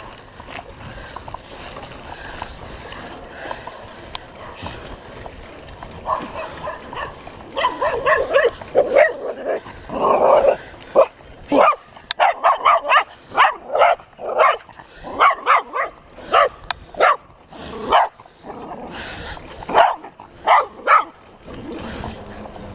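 A dog barking repeatedly, about two barks a second, starting a few seconds in and stopping shortly before the end, over a steady background hiss.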